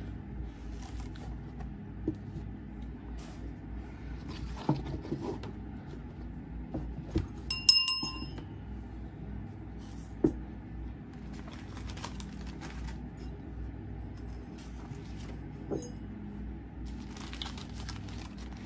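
Small items being handled and set down on a table: rustling packets and light knocks, with one short ringing clink about eight seconds in.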